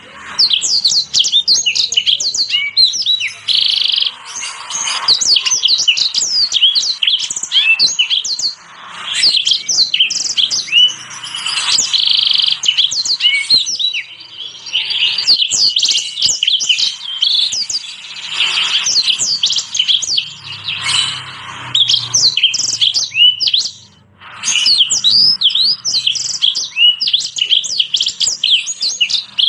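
Small finches of the canary kind singing a fast, twittering song of quick high chirps and trills, in phrases several seconds long broken by short pauses.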